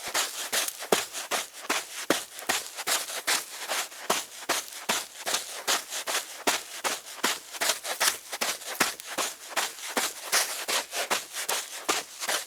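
A woman's footsteps on dry sand: a steady series of gritty steps, several a second.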